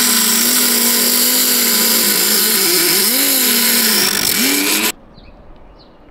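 Power tool cutting off solar panel mounting brackets, its motor pitch dipping and recovering as it bites. It stops abruptly about five seconds in.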